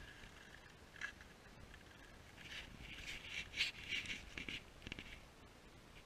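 Faint crunching and scraping of snowshoes and poles in packed snow, with rustling close to the microphone; an irregular cluster of louder crunches through the middle.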